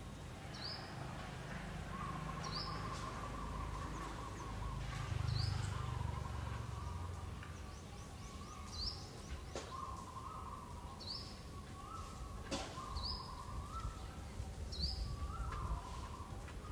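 A bird calling repeatedly: about eight short, high chirps that sweep upward, roughly one every two seconds, over a low outdoor rumble.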